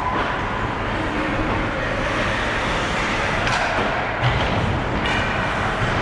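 Ice hockey rink ambience: a steady wash of crowd and rink noise, with a couple of sharp knocks from sticks, puck or boards about three and a half and five seconds in.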